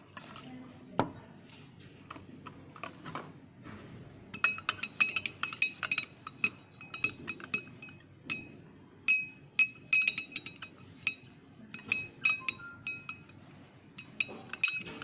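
Glass stirring rod clinking against the inside of a glass Erlenmeyer flask as extract powder is stirred into water to dissolve it. The clinks ring and come several a second in quick runs with short pauses, starting about four seconds in. Before that there is only quieter handling and one knock.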